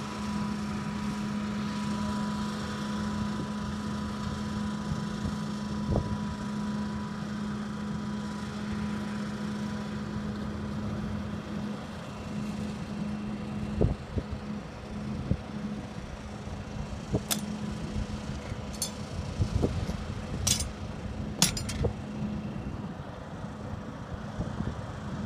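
ALCO S1 diesel switcher locomotive idling with a steady hum. It is broken in the second half by several sharp metallic clanks and knocks.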